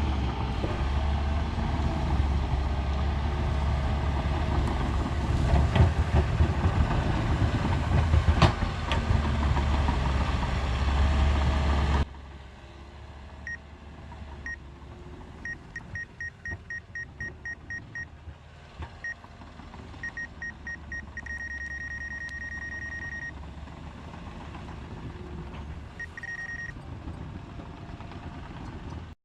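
Heavy earthmoving machinery running close with a steady low drone. About twelve seconds in, the sound drops suddenly to a quieter distance, and a backup alarm beeps in short runs, then in one longer unbroken stretch.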